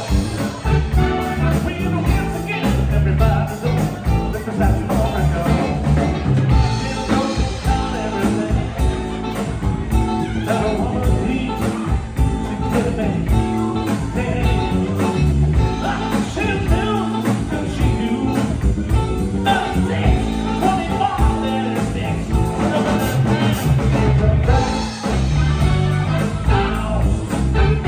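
Live band playing a blues-rock number, with guitar and singing over a steady bass and drum beat.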